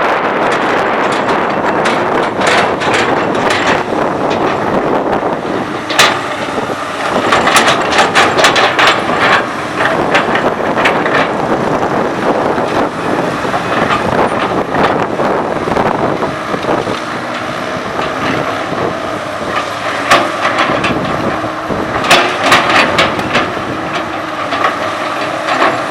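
Komatsu PC200 hydraulic excavator's diesel engine running steadily under work, with bursts of sharp knocks and clanks from the working machine, a cluster about a quarter of the way in and another near the end.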